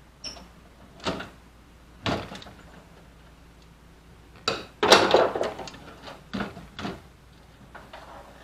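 Metal clanks and knocks as the steel instrument panel of a 1952 M38A1 Jeep's dash is worked loose and lifted out. A longer, louder rattling clatter comes about five seconds in.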